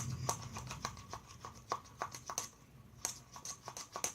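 Light, irregular tapping, about two to four taps a second, each with a brief ringing at the same pitches.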